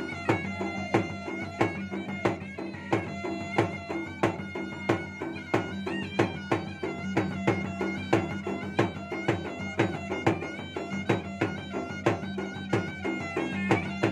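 Makassarese gendang music: two double-headed barrel drums beaten in a fast, steady rhythm with a hand and a stick, under a reedy wind pipe holding an unbroken melody.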